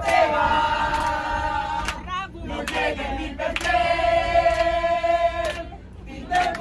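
A crowd of people singing and chanting loudly together in unison, holding long drawn-out notes. One long note is held from about three and a half seconds in until near the end.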